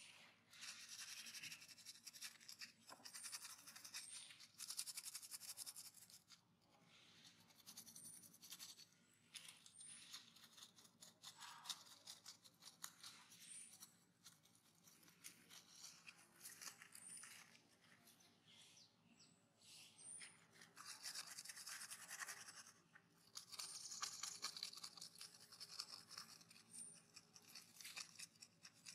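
Faint scratchy rustling and crunching of dry fallen leaves as macaques move and groom on them, coming in spells of a few seconds, with short high chirps every few seconds.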